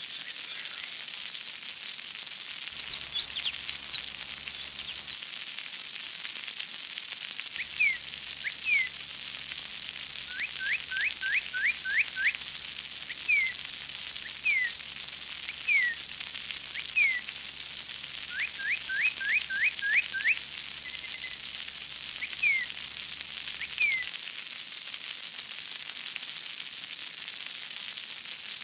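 Steady hiss of spraying, splashing water with a bird chirping over it: short whistled notes, some single and some in quick runs of five to seven, heard on and off from a few seconds in until near the end.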